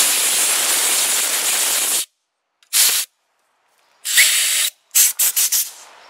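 Compressed-air blow gun blasting air into an RV propane fridge's burner and flue area to clear out dust and debris. A loud hissing blast of about two seconds, then a short blast, another short blast just after four seconds, and a quick string of short puffs near the end.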